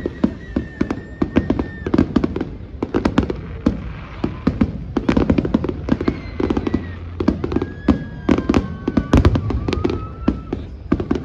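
Fireworks going off in rapid succession: many sharp bangs and crackles, with several long whistles that hold steady or slowly fall in pitch.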